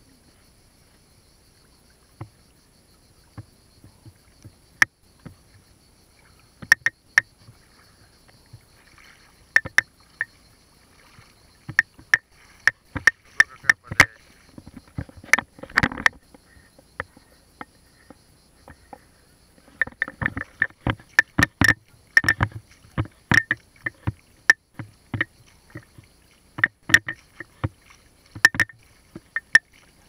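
Footsteps wading through a shallow pebbly river in sandals: irregular splashes and stones knocking underfoot. The splashing is sparse for the first few seconds, then comes in dense bursts with a short lull in the middle.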